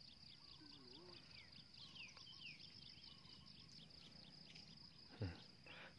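Near silence with a faint, steady high-pitched insect trill pulsing rapidly, and a few short falling chirps about two seconds in.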